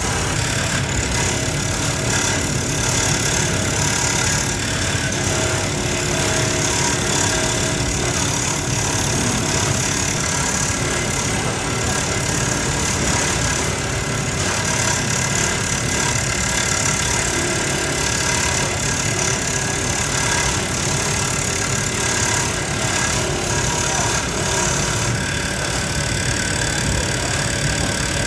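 Steady machinery drone of a shoe-making workshop: a constant mechanical hum with a layer of hiss and no single event standing out. The upper part of the hiss eases a few seconds before the end.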